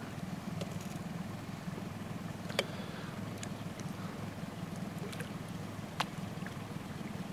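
Boat's motor idling with a low steady hum, and two sharp clicks, about two and a half and six seconds in.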